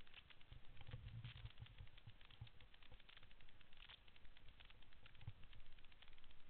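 Faint sound of a mountain bike rolling over a gravel forest track: a fast, irregular crackle of tyres on loose stones and rattling, over a low rumble of bumps that swells about a second in and again near the end.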